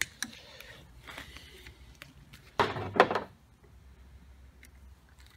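Faint rustling as cable and heat-shrink tubing are handled, then a brief clatter with two knocks about two and a half to three seconds in as a hand crimping tool and crimp lug are picked up and handled.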